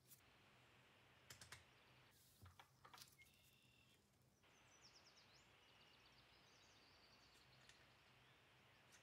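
Near silence with a few faint clicks, then a faint run of small rapid ticks as a utility knife blade shaves the edge of a small plastic part.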